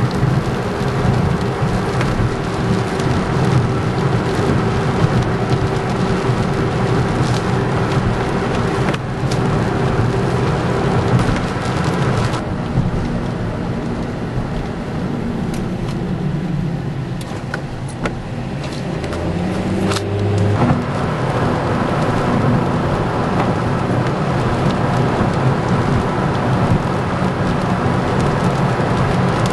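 Car driving at highway speed, heard from inside the cabin: steady engine and tyre drone with wind noise, and scattered sharp ticks. The hum shifts in pitch about twenty seconds in.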